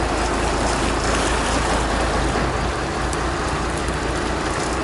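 Boat engine running steadily, a constant low hum under a loud, even rush of wind and water noise.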